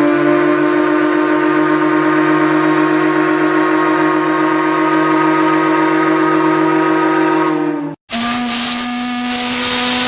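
RMS Teutonic's ship's whistle blowing one long, steady blast of several pitches sounding together, cutting off about eight seconds in. Right after, a second, lower-pitched ship's whistle begins.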